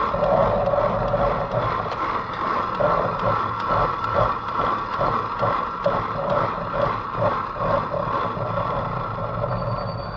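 Zipline trolley pulleys running along the steel cable, a steady whine over wind rushing past, pulsing about three times a second in the middle and getting quieter near the end.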